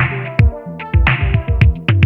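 Electronic background music with a steady drum-machine beat: a deep kick drum, sharp snare or clap hits, and sustained synth chords.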